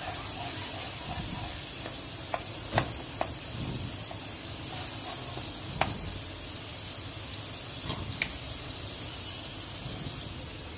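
Onion and spice masala sizzling in oil in a pan as a wooden spatula stirs it, with a few sharp knocks of the spatula against the pan. The spices, ginger-garlic paste and cumin paste are being fried down together.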